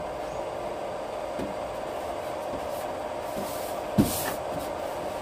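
Cooling fan of an Otoheroes MF-2B 12V/24V battery charger running steadily with a faint whine while it charges a car battery at about 10 amps. A single short knock comes about four seconds in.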